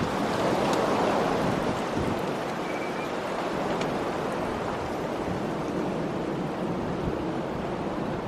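Steady wind blowing against the microphone, gusting a little stronger about a second in.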